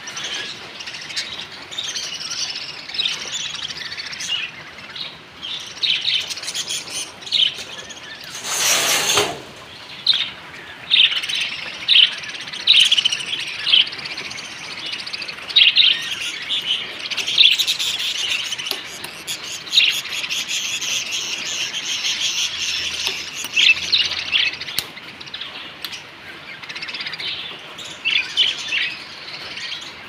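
A crowd of budgerigars chattering and chirping, with many rapid overlapping high chirps. A brief rustling noise comes about nine seconds in.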